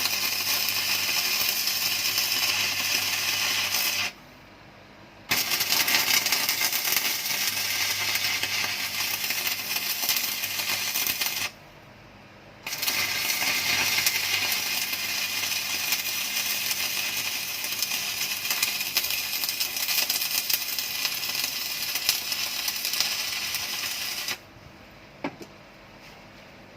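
Welding arc from a Muller welding machine converted to a forward-converter board, crackling steadily. The arc breaks off twice for about a second and stops near the end.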